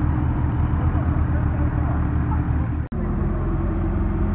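A Porsche 911 Turbo's twin-turbo flat-six running steadily at low revs as the car pulls away. About three seconds in, a hard cut brings in a Ferrari F430's V8, also running steadily at low revs.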